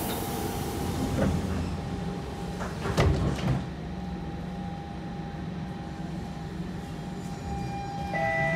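Siemens C651 train's sliding doors closing with a hiss, ending in a sharp thud about three seconds in. The carriage then hums and rumbles steadily with a constant motor tone. Near the end, an electronic chime starts.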